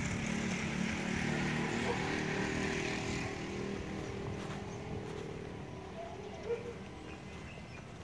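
A steady engine drone that slowly fades away, with a brief sharp sound about six and a half seconds in.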